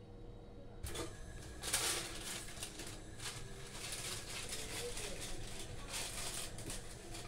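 Small handling sounds of a plastic honey jar being opened and a plastic measuring spoon scooping thick honey from it. A click about a second in is followed by irregular scrapes and clicks.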